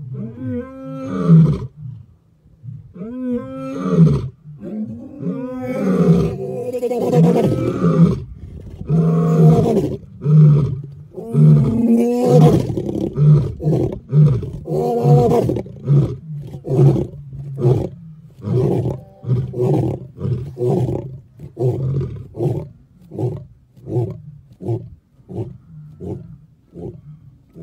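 Lion's roaring bout: about five long, deep roars, then a run of short grunts that quicken to more than one a second and fade away toward the end.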